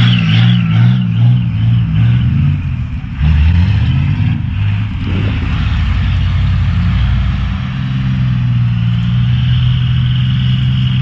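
5.9 12-valve Cummins turbo diesel running under way. Its note shifts about three seconds in, then holds steady, and a steady high whine comes in near the end.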